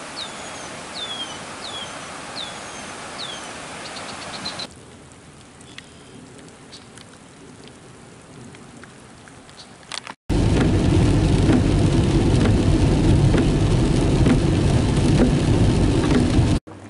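Steady rain hiss with a bird giving about five short falling whistles; then a quieter stretch of light rain with scattered drip ticks. About ten seconds in, it gives way to loud, steady road and tyre noise of a car driving on a wet road, heard from inside the car.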